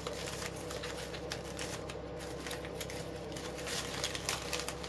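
Poly ribbon bow loops rustling and crinkling as they are pulled around and rearranged by hand: a string of light, irregular scratchy rustles over a faint steady hum.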